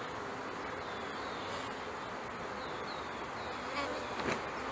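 Honey bees from a newly installed package buzzing steadily over an open hive's frames. A louder buzz drops in pitch about four seconds in.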